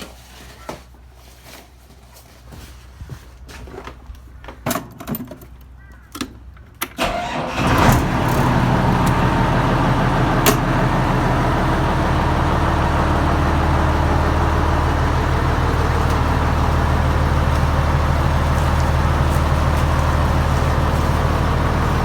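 Fish-feed pellet machine starting up about eight seconds in, after a few scattered knocks and clicks, then running steadily with a loud, low hum as it grinds the feed mix.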